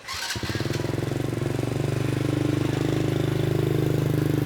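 A small engine starts about a third of a second in and keeps running at a steady idle, with a fast even pulse.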